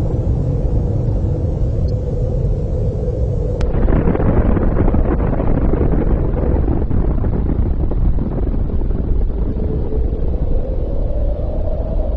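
Sound effect of a nuclear blast: a loud, continuous low rumble that turns harsher about four seconds in.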